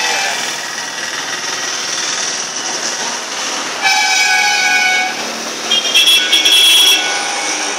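Vehicle horns in street traffic: one long horn blast about four seconds in, then a higher-pitched horn tooting in quick repeated bursts near the end, over steady traffic noise.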